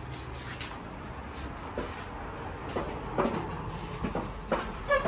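A few scattered knocks and clatters, growing more frequent in the second half, over a low steady rumble.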